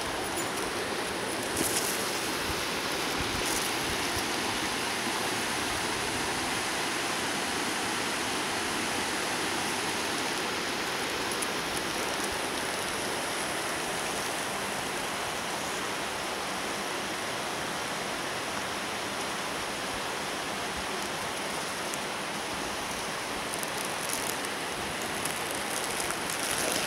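Steady rush of a rocky creek running over stones below, with a few faint knocks near the start and near the end.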